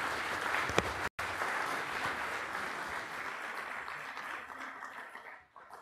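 Audience applauding, with a very brief cut about a second in, then dying away near the end.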